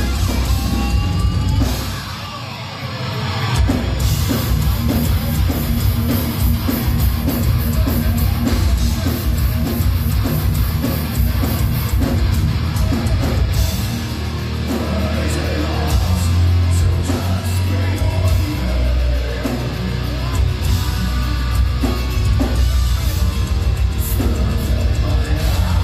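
Metal band playing live: distorted electric guitars and drum kit. About two seconds in, the band briefly drops out, then comes back in full around four seconds.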